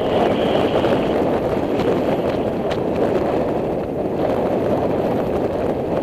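Wind buffeting the microphone high up on a tower, a steady rushing rumble, with a faint higher hiss in the first second and a few faint clicks.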